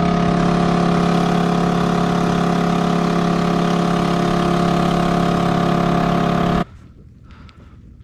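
Small Honda outboard motor running at a steady, constant speed, pushing a kayak across the water. It cuts off abruptly about six and a half seconds in.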